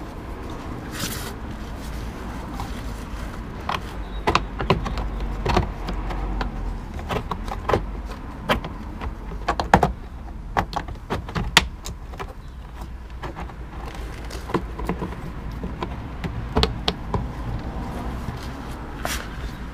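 Irregular plastic clicks, knocks and scrapes as a stuck fog lamp is twisted, pushed and pulled by hand in its recess in a 2004 Mercedes SLK 350's front bumper, over a steady low rumble.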